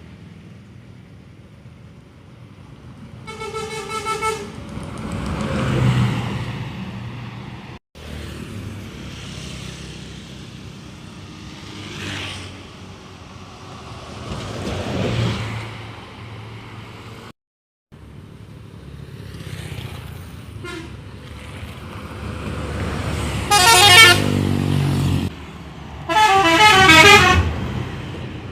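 Harapan Jaya intercity buses sounding telolet horns, quick warbling multi-tone melodies, as they pass, with engine noise swelling as buses drive by. A short horn call comes a few seconds in, and two long, loud horn melodies come near the end.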